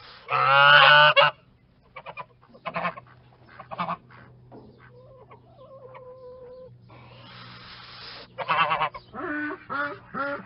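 Geese honking: one loud long honk about half a second in, a few short honks over the next few seconds, a softer held call in the middle, then a run of honks near the end.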